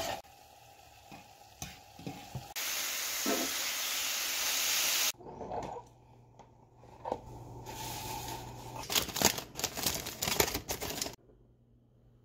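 Thinly sliced steak and puréed onion frying in a skillet: a loud, even sizzle for about two and a half seconds that starts and stops abruptly. Then, under a low steady hum, a run of knocks and rattles as utensils are rummaged in a kitchen drawer.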